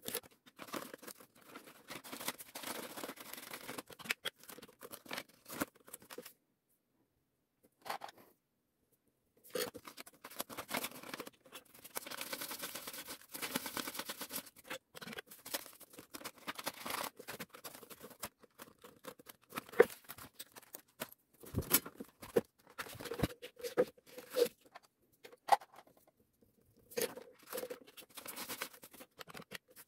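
Paper banknotes rustling and flicking as Korean won notes are handled and counted by hand, with sharp clicks and taps in among the rustle. The sound drops out twice, a few seconds in.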